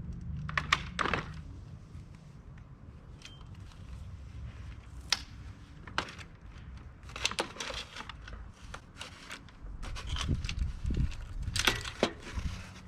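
Scattered sharp clicks, clinks and rustles of small hard objects being handled, with a low steady hum underneath.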